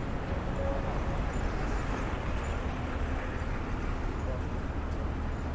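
City street ambience: steady traffic noise with indistinct voices of passers-by.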